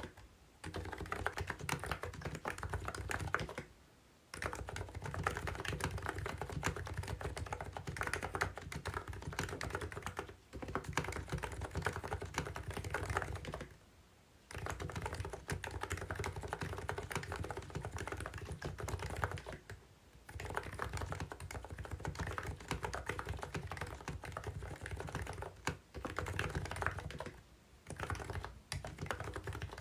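COX CNK84W electrostatic capacitive (no-contact) keyboard being typed on quickly, a dense, steady stream of keystrokes broken by short pauses about 4, 14 and 20 seconds in and twice near the end.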